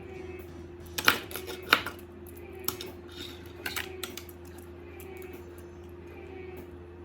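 Small hard parts clicking and clinking as they are handled and fitted together: two sharp clicks about a second in, then a few lighter ones, over a steady low hum.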